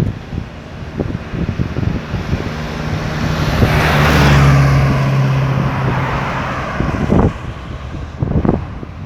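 A motor vehicle passing on a highway: engine hum and tyre noise build to a peak about four seconds in, then fade away. Gusts of wind buffet the microphone.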